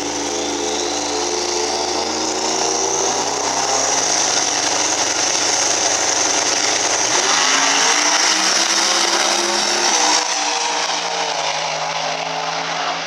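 Twin-turbo V8 engine of a 10.5 Outlaw drag-racing Ford Mustang running at the start line, then launching about seven seconds in and accelerating down the strip. Its pitch climbs, drops once near ten seconds in, then climbs again.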